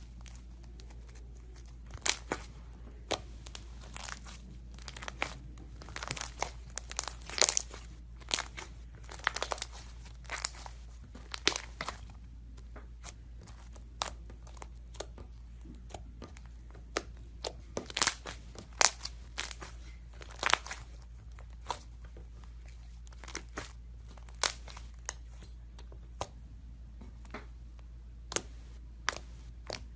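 Crunchy iceberg slime, its hardened top crust crackling and crunching in irregular bursts of sharp crackles as it is pressed and squeezed.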